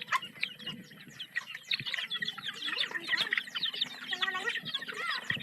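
A crowded flock of broiler chickens peeping, chirping and clucking, many short overlapping calls at once.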